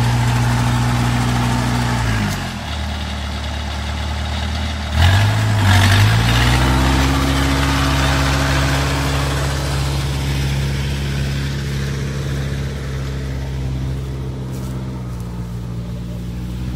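Engine of a tracked rice carrier running under load. It slows about two seconds in, revs back up about three seconds later with a brief clatter, then runs steadily and slowly fades as the carrier moves off.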